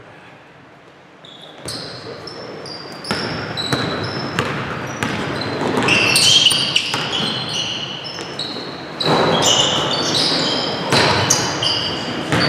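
Basketball shoes squeaking on a hardwood gym floor as players run and cut, with a basketball being dribbled. The squeaks start about a second and a half in and then come thick and fast, many short high-pitched squeals, with sharp knocks of the ball among them.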